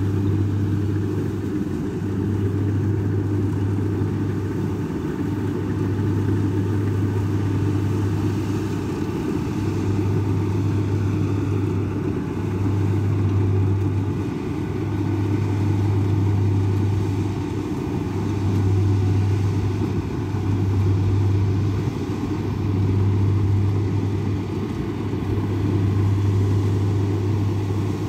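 Kubota combine harvester running steadily while cutting and threshing rice, with a low engine hum that swells and eases every couple of seconds.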